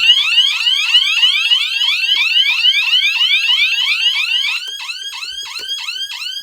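Several alarm bell-box sirens sound together, each a fast, repeated rising sweep. About four and a half seconds in, one cuts out and a single siren keeps going, as the sounders are being switched off.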